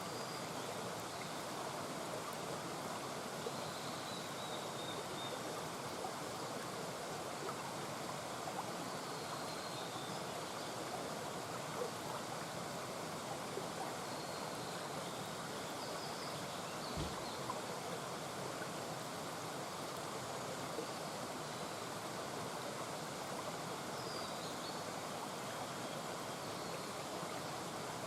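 Small mountain brook murmuring steadily.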